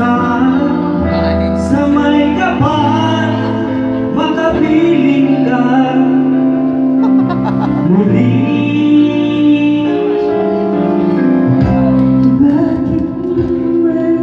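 Karaoke duet: a backing track of held instrumental chords plays through the bar's PA speakers while amateur singers sing along into microphones.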